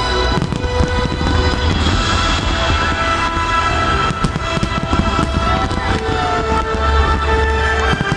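Dense fireworks barrage: many aerial shells booming and crackling in quick, irregular succession, with music playing along with held notes.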